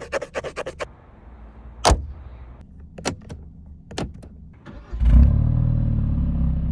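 Genesis G70 engine starting about five seconds in and running steadily with a loud low note, after a quick run of clicks and a few single knocks.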